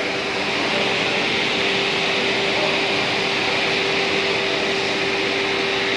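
Brush roller sanding machine for plywood running steadily: a constant hiss with an unchanging mid-pitched hum.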